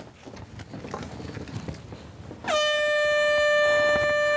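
Handheld canned air horn sounding one loud, steady blast that starts suddenly about two and a half seconds in, after faint rustling.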